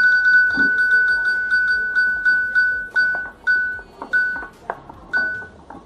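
Electronic roulette-wheel spin sound: a high beep tone, at first unbroken, that breaks into separate beeps coming further and further apart as the wheel slows toward a stop.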